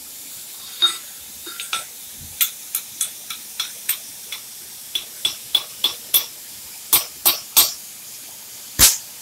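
Irregular sharp clinks and taps, about twenty in nine seconds, over a steady hiss.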